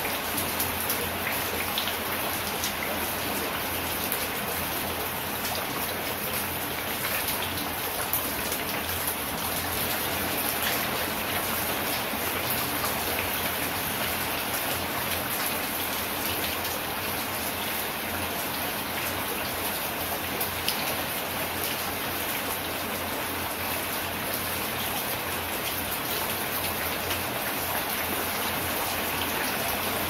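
Steady rain falling on leafy plants: an even hiss with many small drop hits.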